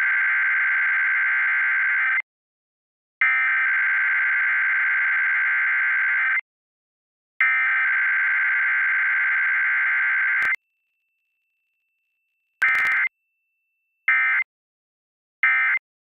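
Emergency Alert System Required Weekly Test: three SAME header data bursts, each about three seconds of harsh buzzing digital tones with a second's gap between them. After a click and a pause come three short end-of-message bursts. There is no attention tone and no voice message.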